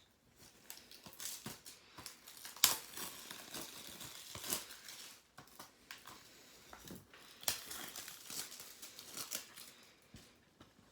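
Plastic wrapping crinkling and tearing as a Blu-ray/DVD case is unwrapped and opened, in irregular crackly bursts with a sharp click about three seconds in.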